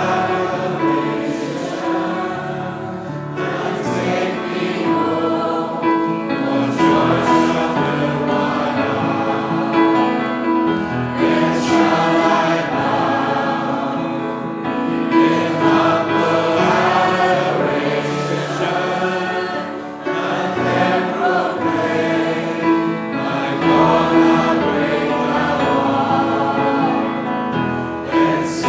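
A group of voices singing a hymn together, in phrases a few seconds long.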